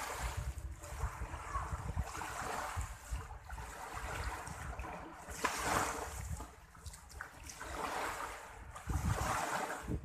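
Small waves washing in shallow sea water, rising and falling every few seconds, with wind rumbling on the microphone.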